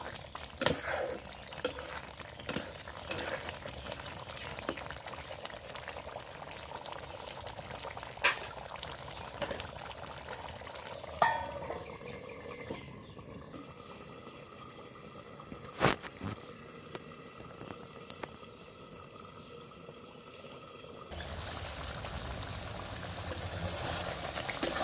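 Masala chicken curry bubbling as it simmers in a pot, with occasional sharp clicks and knocks.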